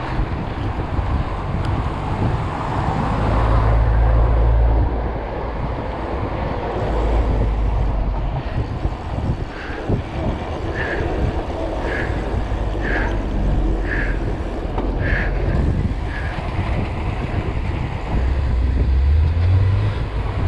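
Wind buffeting the microphone and tyre noise of a 29-inch mountain bike rolling along a paved street, with gusty low rumbles. Through the middle, a short high squeak repeats about once a second for several seconds.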